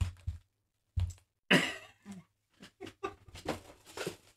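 A person coughs once, loudly, about a second and a half in, between soft low knocks and a run of short, faint breathy sounds.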